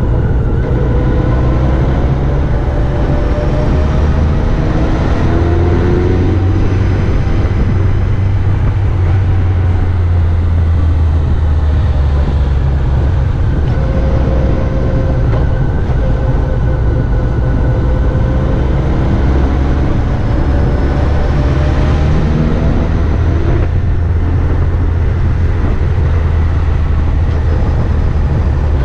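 Motorcycle engine running over a steady low rumble, its pitch rising and falling slowly as the throttle changes through the bends.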